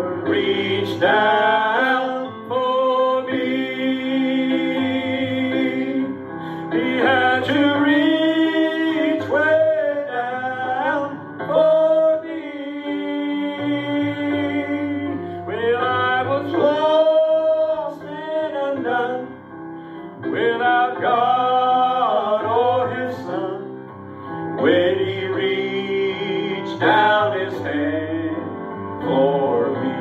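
A gospel song sung with guitar accompaniment, the voice holding long notes between phrases.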